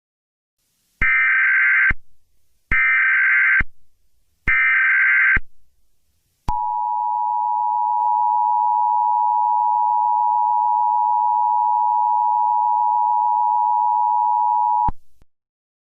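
Emergency Alert System SAME header: three identical bursts of warbling data tone, each about a second long. It is followed by the EAS two-tone attention signal, a steady loud tone held for about eight seconds that cuts off abruptly near the end. Together they signal the start of an emergency alert broadcast.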